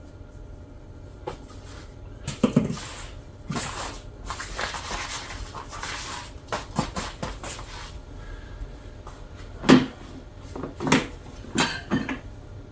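Hands working a powdered dirt bike inner tube and tire: a stretch of rubbing and rustling, then several sharp knocks and bumps near the end.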